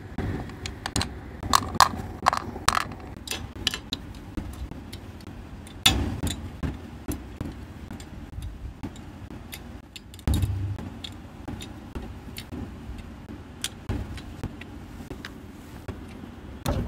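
Small plastic clicks and taps as tiny doll shoes and accessories are set down with tweezers on clear acrylic display shelves: an irregular string of sharp ticks, with a duller knock about six seconds in and again about ten seconds in.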